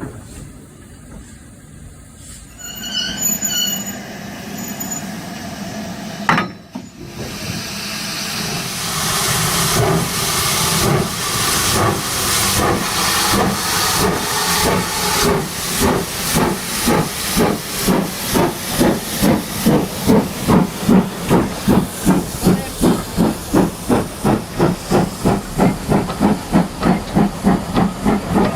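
Model steam locomotive pulling away: a hiss of steam under exhaust chuffs that speed up from about one to about two a second.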